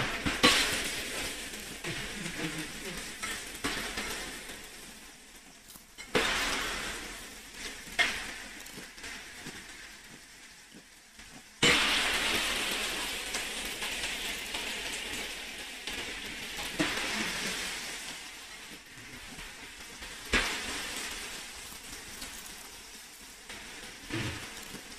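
Food sizzling as it fries in hot oil. The sizzle flares up suddenly about five times and dies down gradually between flares.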